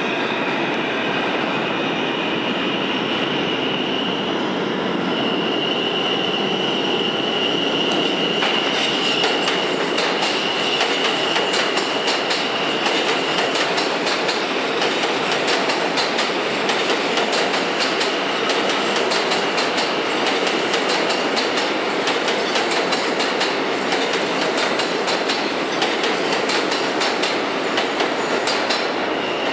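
R160 subway train running past at speed, its wheels clicking rapidly over the rail joints from about nine seconds in. A steady high whine sounds over the rumble for the first dozen seconds, then fades.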